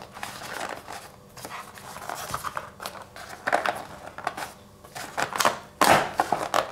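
Hands pressing and sliding over the cardboard flaps of an empty box insert: irregular papery scraping and rustling with small clicks, loudest about six seconds in.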